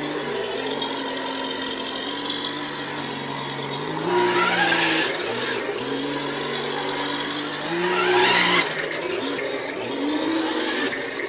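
Electric RC truck running, its motor and gears whining steadily. It surges twice, about four and eight seconds in, with a rising whine and a rush of noise as it accelerates.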